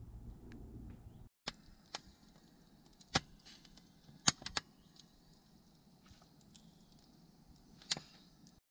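Small fire of dry twigs and sticks crackling, with about six sharp, scattered pops over a faint hiss.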